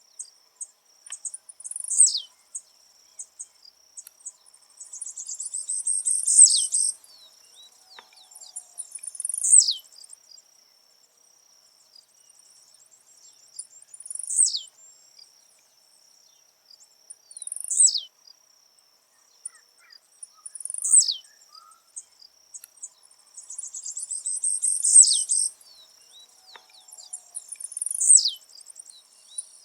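Blue-black grassquit (tiziu) singing its short buzzy song, each phrase ending in a sharp downward sweep, repeated about every three to four seconds. Twice a phrase is led by a longer buzzy run of notes, once near the start and once about three quarters of the way in.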